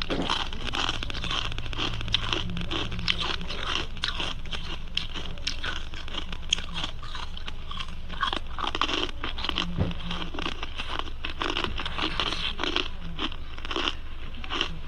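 Ice being bitten and chewed close to the microphone: a continuous run of irregular, crisp crunches and cracks.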